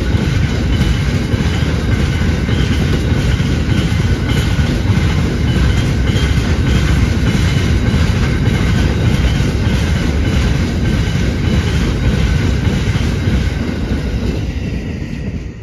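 Empty steel-train freight wagons rolling past on the rail: a steady low rumble with regular clickety-clack of wheels over the track. It fades away near the end as the last wagon goes by.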